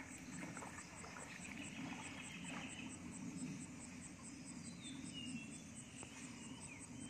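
Insect chirping in a steady, evenly spaced high-pitched pulse, about four pulses a second, faint over low outdoor background noise.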